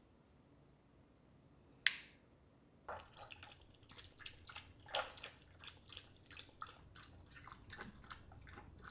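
Two Pomeranians lapping diluted milk from ceramic bowls: a quick, irregular run of faint wet licking clicks, after a single knock about two seconds in.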